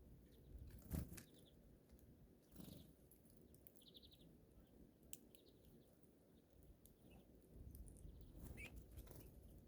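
Faint calls of small birds at a feeder: scattered short chirps and a brief trill, with a few sharp knocks, the loudest about a second in.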